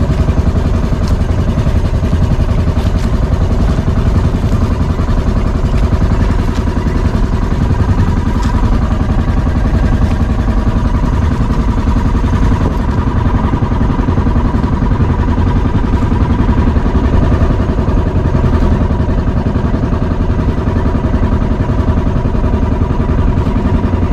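The motor of a wooden outrigger boat (bangka) running steadily under way, a dense low pulsing drone that holds the same pace throughout.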